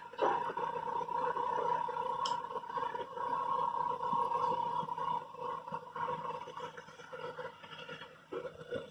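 A steady mechanical hum with a high, even whine, typical of construction machinery running.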